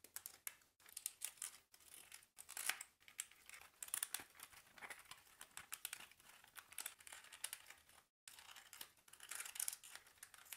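Printed card pieces of a 3D paper puzzle stadium model being handled and pressed together by fingers: soft crinkling and small clicks of card and paper, stopping briefly about eight seconds in.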